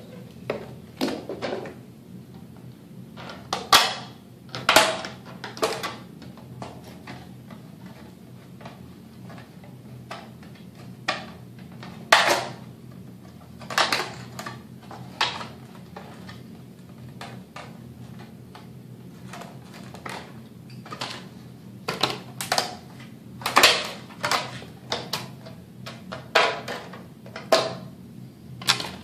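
Scissors snipping through the thin vacuum-formed ABS plastic of a Stormtrooper armor shin piece as its edge is trimmed off: short, sharp cuts at irregular intervals, some in quick runs, over a steady low hum.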